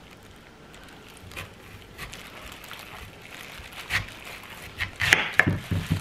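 Chef's knife slicing through a crisp Asian pear on a wooden cutting board: a few faint clicks at first, then crunching cuts and sharp clicks from about four seconds in.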